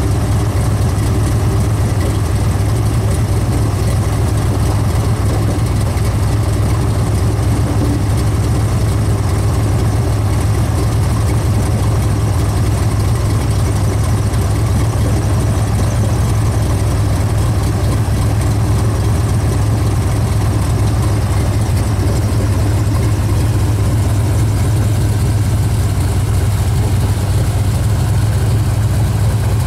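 An engine running steadily at one speed, a deep unchanging hum with no revving.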